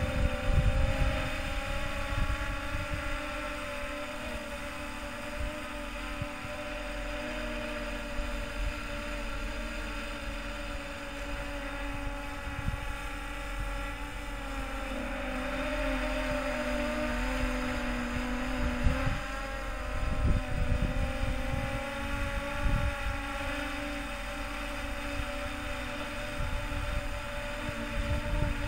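DJI Phantom 3 Professional quadcopter's propellers buzzing in flight, a steady multi-tone hum whose pitch drifts as the drone manoeuvres. Wind gusts rumble on the microphone, strongest about two-thirds of the way in.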